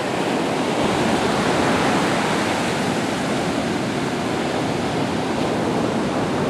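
Ocean surf breaking and washing up a sandy beach: a steady rush of waves that swells a little about a second in.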